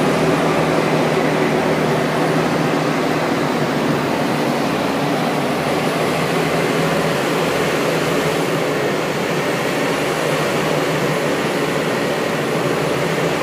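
John Deere 7780i self-propelled forage harvester running hard, a steady drone of its big diesel engine and machinery with no change in speed.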